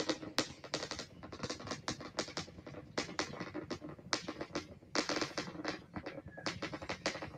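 Crackling rumble of the Super Heavy booster's 33 Raptor engines heard from the ground: a fast, irregular run of sharp cracks and pops, some much louder than others.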